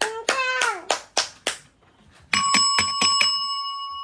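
Hands clapping along with a short voice sliding down in pitch, then, about two seconds in, a small bell rung several times in quick succession, its ring hanging on and slowly fading.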